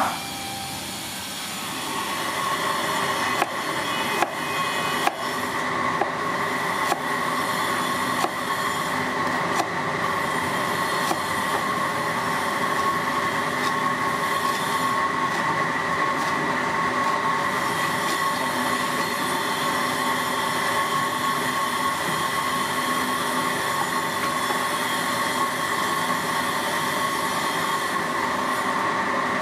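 Cleaver blade knocking on a cutting board while slicing ginger: single chops roughly a second apart through the first half. Behind them is a steady, high-pitched mechanical whine or squeal of unclear source, which starts about a second in.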